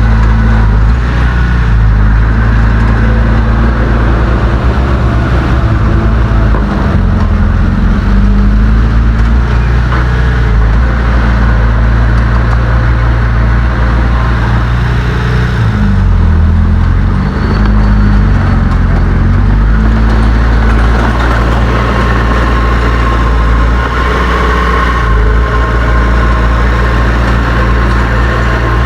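Heavy diesel engine of earthmoving machinery running loudly under load, its engine speed dipping and rising a few times, notably about a third of the way in and again past the middle.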